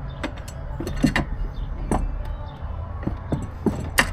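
Scattered metallic clicks and knocks, eight or so irregular taps, from tools and metal parts on a Toro walk-behind mower as its shifted engine is pushed and wedged back into place.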